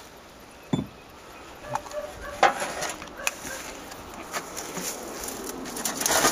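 A few separate knocks and clinks as objects are handled and moved off a covered stationary engine, then a louder rustling noise near the end.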